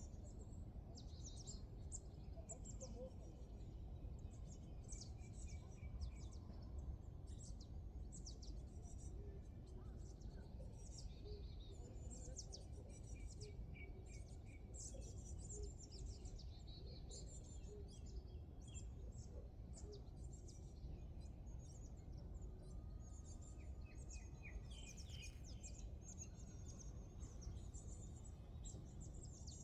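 Several birds chirping and singing, many short quick calls one after another, over a steady low background rumble.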